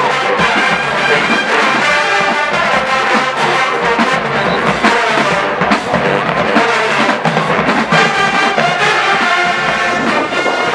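A large HBCU marching band's brass section playing loudly and without a break: trombones and trumpets in a full, dense band sound.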